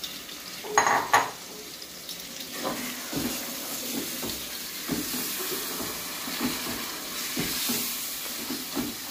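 A metal spoon stirring green peas through tomato masala frying in a metal pot, knocking and scraping against the pot with the masala sizzling, as the peas are fried in the masala. Two sharp clinks come about a second in.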